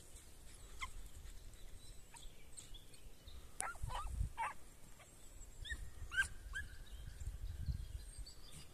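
Faint short yelps from dogs in a few quick clusters around the middle, over a low rumble of wind on the microphone.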